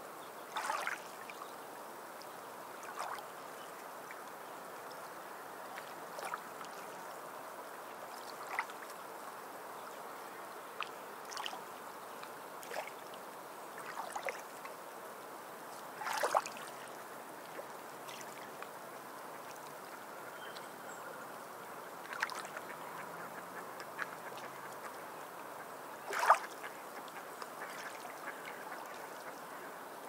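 Gentle water lapping and sloshing: a steady wash with a dozen short splashes at irregular intervals, the loudest about 16 and 26 seconds in.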